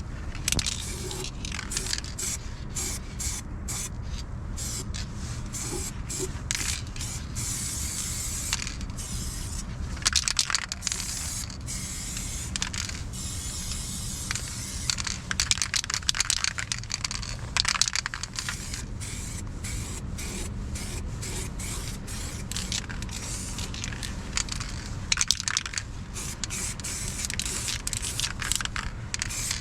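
Hissing spray in repeated bursts, some brief and some held for a second or more, over a steady low hum.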